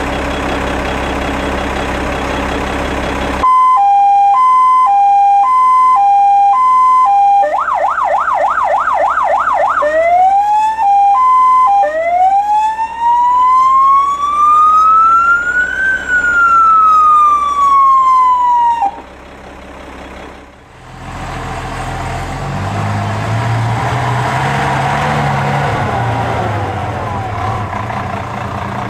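Electronic siren on a fire engine run through its tones: a hi-lo two-tone, then a fast yelp, then a slow wail rising for about four seconds and falling for three, cut off suddenly. It is bracketed by a vehicle engine running, whose pitch wavers over the last several seconds.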